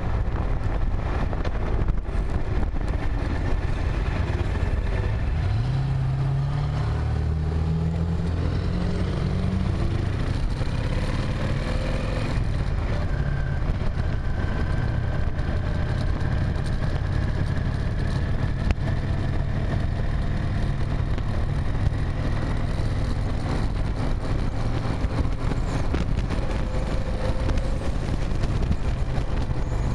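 Vehicle driving on a road: steady engine and road rumble, with an engine's pitch rising as it accelerates a few seconds in, then settling into steady cruising.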